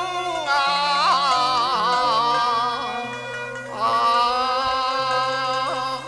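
Cantonese opera song with its instrumental accompaniment: a long, wavering melodic line, the drawn-out melisma closing a sung phrase, over a slow stepping bass line. A new melodic phrase enters about four seconds in.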